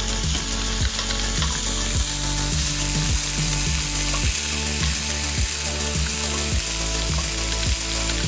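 Background music with a steady beat, about two beats a second, over a low bass line that steps from note to note.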